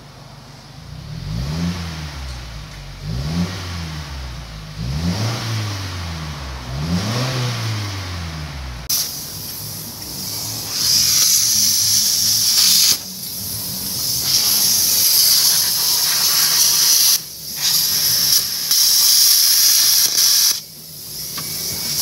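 Subaru Forester's flat-four boxer engine revved four times through its exhaust with the stock mid-section muffler still fitted. After that, an angle grinder starts cutting through the underbody mid muffler, a loud steady high hiss that stops briefly two or three times.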